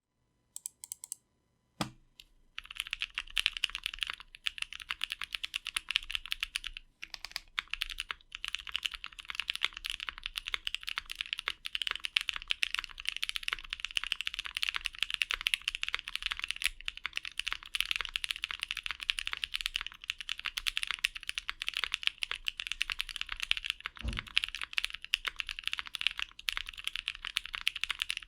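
Steady, fast typing on a Bakeneko 60 custom mechanical keyboard with lubed Gazzew Boba U4T tactile switches in an aluminium plate on an O-ring mount, with GMK ABS keycaps. A few single keystrokes and a dull thud come first, then continuous typing starts about two seconds in, with a brief pause around seven seconds and another dull thud later on.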